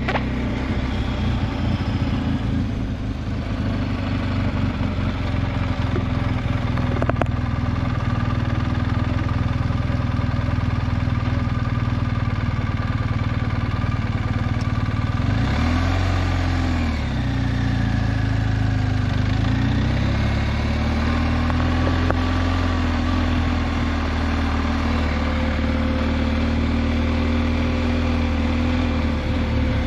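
BMW R1250GS Adventure's boxer-twin engine running on the move. Its pitch rises and falls a couple of times about halfway through, then holds steady.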